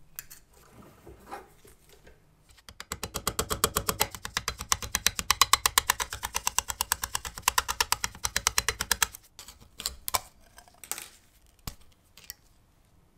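Rapid, even metallic tapping, about eight to ten strikes a second for several seconds, as a thin punch drives a rusted hinge pin out of a small tinplate locomotive part; a few single taps follow near the end.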